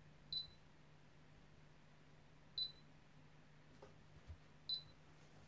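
Hantek DSO2C15 digital oscilloscope sounding its key beep as front-panel buttons are pressed: three short high beeps about two seconds apart, over a faint steady low hum.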